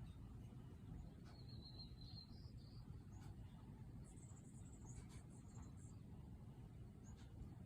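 Faint songbird calls over a low outdoor rumble: a short high chirping phrase about a second in, then a run of very high thin notes around the middle.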